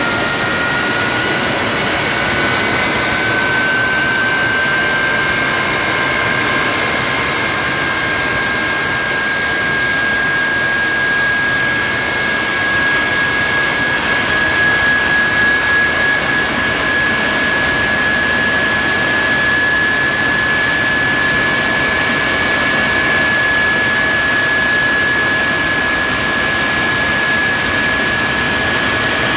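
Rolls-Royce/Snecma Olympus 593 turbojet (the Concorde engine) running on a ground test stand: a loud, steady rush of jet noise with a high whine that rises a little over the first several seconds, then holds steady.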